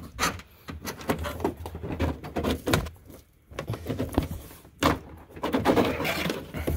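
Irregular scraping, rustling and clicking of a hose and wires being shoved along under a car's interior trim, with sharp knocks and denser rubbing near the end.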